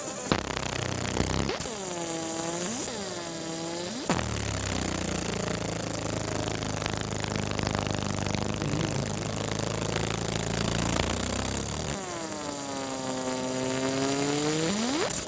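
Laser engraving machine's stepper motors whining as the head moves, the pitch sweeping down and back up in repeated arcs. For several seconds in the middle it gives way to steady low stepped tones, before the sweeping whine returns near the end.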